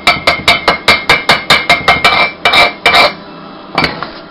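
Slag hammer chipping slag off a fresh stick weld on quarter-inch steel diamond plate: a fast run of sharp metal strikes, about five a second, with a steady metallic ring under them. The strikes stop about three seconds in, and a couple of lighter taps follow near the end.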